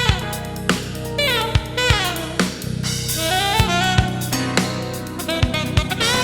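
Jazz-fusion drum kit, a Drumcraft Series 6 with a 22-inch kick, playing a busy groove of kick, snare and cymbal hits over a bass line and a lead melody whose notes bend into pitch.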